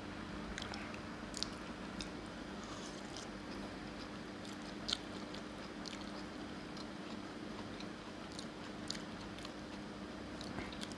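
A person chewing curry-soaked roti, with scattered soft mouth clicks and smacks; the sharpest click comes about five seconds in. A steady low hum runs underneath.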